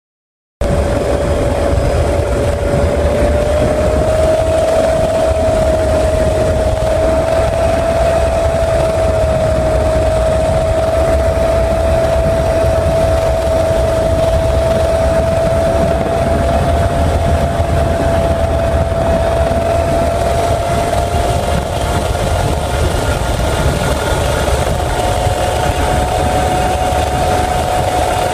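Military helicopter in flight, heard from on board: a steady turbine whine that rises slightly in pitch, over a heavy low rotor drone. It starts abruptly about half a second in.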